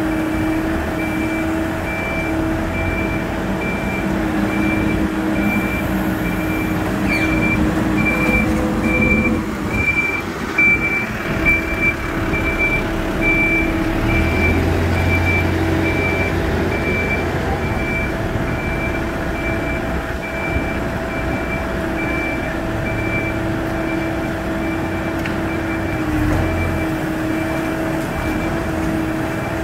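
Backhoe loader's diesel engine running steadily while its reversing alarm beeps over and over at an even pace.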